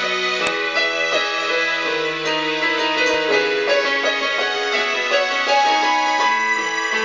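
Electronic keyboard played in a piano-like voice with both hands: a slow melody over held chords, the notes ringing on and overlapping.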